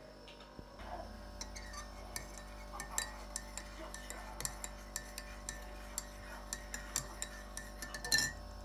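Teaspoon stirring coffee in a mug, clinking against the sides two or three times a second, with a louder run of clinks near the end.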